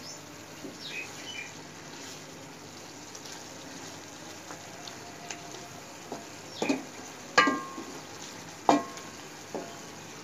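Beef and masala sizzling in an aluminium karahi while a wooden spoon stirs it. In the second half the spoon knocks sharply against the metal pan several times, each knock ringing briefly; the loudest comes about seven and a half seconds in.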